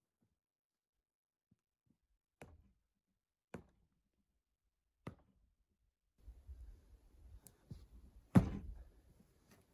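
Three sharp knocks of hard objects striking, a second or so apart, then shuffling and one much louder heavy thump near the end.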